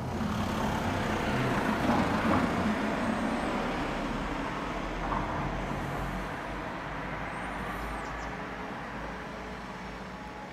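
Road traffic noise from a passing motor vehicle, loudest about two seconds in and then slowly fading away.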